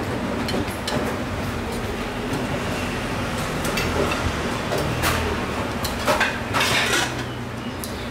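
Kitchen clatter: metal dishes and utensils clinking and clanking over a steady background hum, with a few sharper clanks between about five and seven seconds in.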